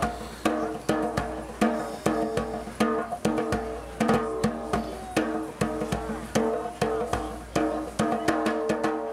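Live hand-drumming on bongos: a quick, steady rhythm of sharp, ringing strikes with regular accents.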